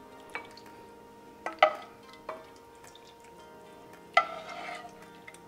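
A ladle clinking against a pot a few times as chicken soup is scooped and poured into a bowl of noodles, with a short splash after the loudest clink about four seconds in. Soft background music plays underneath.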